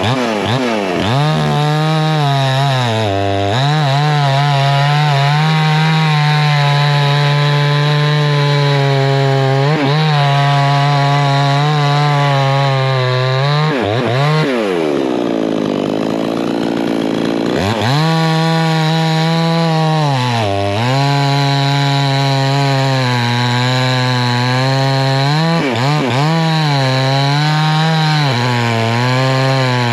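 Two-stroke gas chainsaw running at full throttle, cutting into beech wood, its pitch dipping briefly several times as the chain loads up. About halfway through the revs fall away and then climb back up to full speed.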